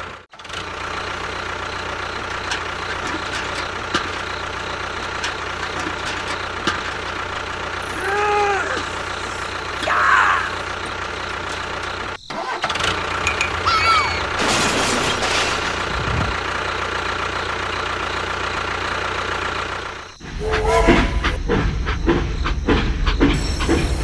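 Steady tractor engine sound running at idle, with a couple of short warbling tones about a third of the way in. Near the end a louder rattling, clicking clatter takes over.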